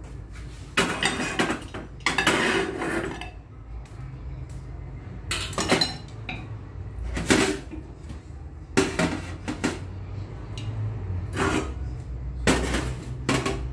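Metal kitchenware clattering: a metal spatula, a steel wok and plates being handled, in a string of sharp clanks and scrapes every second or two.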